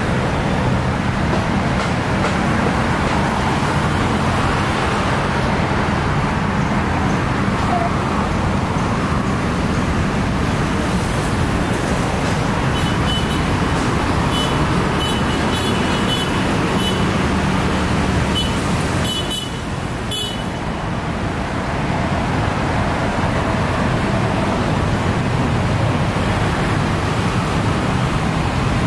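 Steady road traffic noise from a busy multi-lane city avenue, a constant rush of passing cars that eases briefly about two-thirds of the way through.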